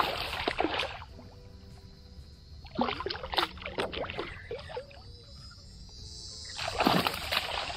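Hooked small tarpon thrashing and splashing at the water surface beside a paddleboard, in three bursts of splashing a few seconds apart.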